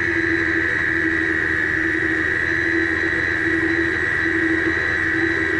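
Stand mixer motor running on a very low speed with a steady whine, its paddle attachment beating flour into cookie dough in a steel bowl.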